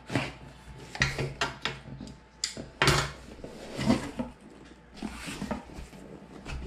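Long cardboard shipping box being handled and lifted: a series of scrapes, rustles and knocks of cardboard against the table and hands, several of them sharp.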